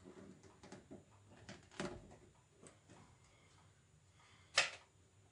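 Faint clicks and rustles of hands handling wires and a hand tool, with a louder short noisy sound about four and a half seconds in.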